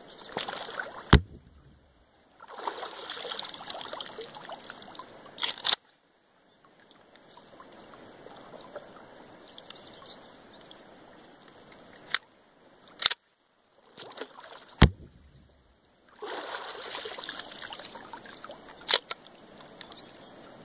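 About six sharp reports and clacks from a Glock 22 .40 S&W pistol being fired at and under the water's surface and having its slide racked to chamber fresh rounds, over low splashing and trickling water. The pistol fires once after each chambering, which clears the water from the firing pin channel.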